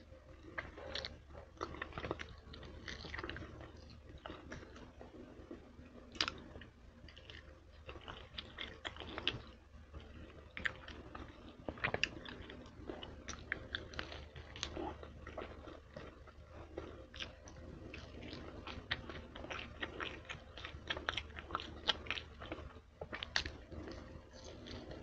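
Close-miked chewing and gnawing of barbecue chicken wings, meat being stripped off the bones, with many irregular wet smacks, sucks and clicks of the mouth and lips.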